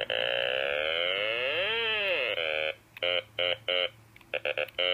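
Otamatone, the Japanese electronic toy instrument, played on its low octave setting. One long buzzy note bends up and back down in pitch, then comes a string of short staccato notes.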